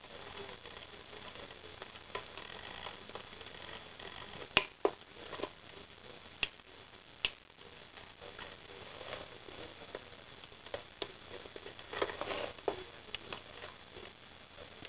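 Battery-powered cat teaser toy whirring faintly as its small motor swings the wand back and forth, with scattered sharp clicks and taps, a pair of louder ones about four and a half seconds in and a quick cluster near the end.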